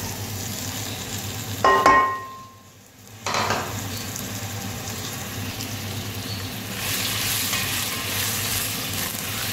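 Sliced bottle gourd sizzling in hot oil with cumin and turmeric in a pot, stirred with a spatula. A brief ringing clink comes about two seconds in, and the sizzle grows brighter about seven seconds in.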